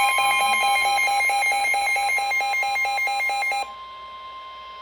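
Emergency Alert System warning tones for a severe thunderstorm warning: a loud electronic two-tone warble repeating about four times a second over a steady tone. About three-quarters of the way through, the warble cuts off, leaving the steady alert tone alone and quieter.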